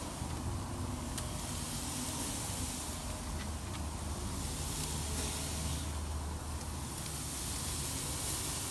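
Brisket and chicken sizzling on a grill over a wood fire: a steady hiss with a few faint pops, over a low rumble.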